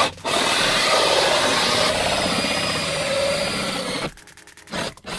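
Cordless drill spinning a hole saw into vinyl siding, cutting a round hole: a loud, steady grinding whir for about four seconds that stops abruptly, then a brief second burst near the end.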